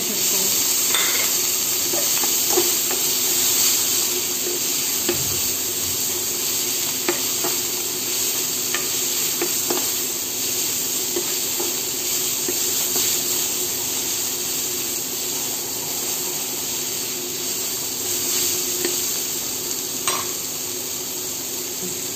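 Chicken and julienned vegetables sizzling in a nonstick wok while being stirred with a steel spoon: a steady frying hiss, with scattered clicks and scrapes of the spoon against the pan and a steady low hum underneath.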